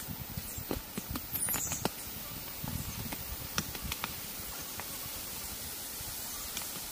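Rustling with light clicks and snaps of leaves and stems as plants are handled and picked by hand, thinning out after about four seconds to a steady faint outdoor hiss.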